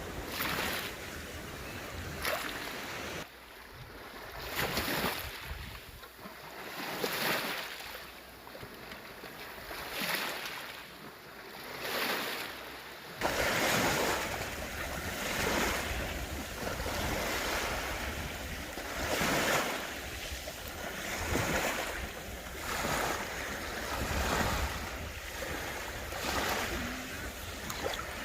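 Sea waves washing in, the surf swelling and fading every two to three seconds. About halfway through the surf gets louder and wind rumbles on the microphone.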